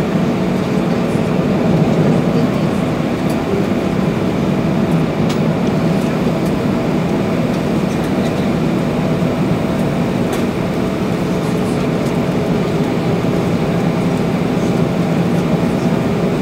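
Steady cabin noise inside an Airbus A320 on the ground after landing: the engines run at idle under a continuous rumble with a low, even hum.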